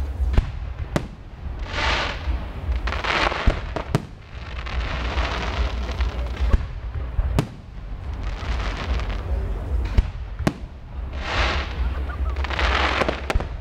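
Display fireworks: aerial shells bursting with about eight sharp bangs, some in quick pairs, between swells of hiss and crackle from the bursting effects.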